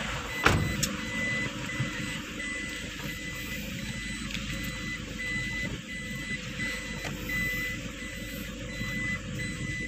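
Reversing warning beeps inside the cabin of a Toyota Innova diesel automatic, short high beeps at one pitch, about two a second, while the car is in reverse. The diesel engine runs underneath as a low steady hum, and a sharp knock sounds about half a second in.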